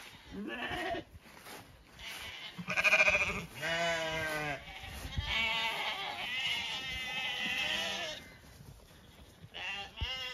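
A flock of Zwartbles sheep bleating, one call after another with some overlapping, the loudest about three seconds in.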